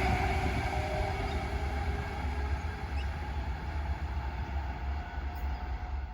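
Adelaide Metro 4000-class electric train moving away, its sound slowly fading over a steady low rumble.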